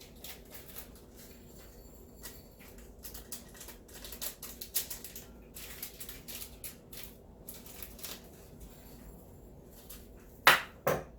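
Light kitchen handling: scattered small clicks and rustles, with two louder sharp knocks near the end.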